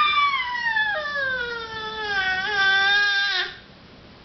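A nine-month-old baby's long, high-pitched vocal sound, sliding slowly down in pitch and stopping about three and a half seconds in.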